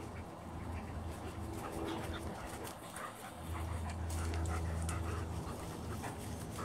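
German Shepherd dog panting as it runs up close, with scattered light ticks and patter. A steady low rumble sets in about halfway through.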